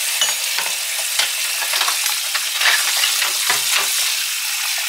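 Crockery from a kitchen sink being lifted out and set aside: irregular clinks and knocks of dishes over a steady hiss.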